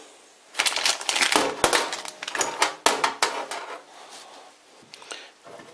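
Crinkling plastic packaging and light clicks of small steel parts as a drill chuck key is unwrapped and laid on the bench, busiest in the first half, then a few softer taps.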